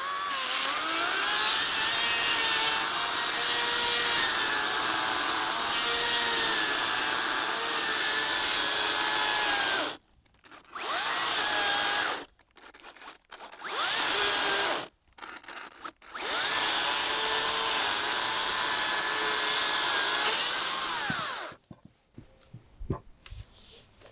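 Older Makita 18V×2 (36V) cordless chainsaw cutting through a tree trunk, its motor whine wavering in pitch under load. The chain stops dead several times and the saw is restarted in short runs: the wood closes in and pinches the bar when cutting from above.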